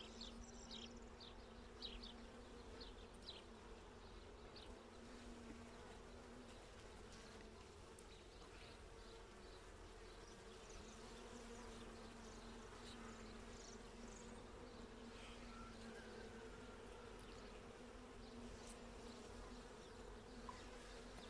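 Faint, steady hum of honeybees buzzing over an open hive, with a few light ticks.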